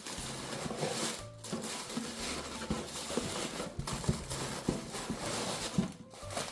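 Plastic Easter grass and packing materials rustling and crinkling with many small clicks as they are pressed into a cardboard shipping box, with faint music in the background.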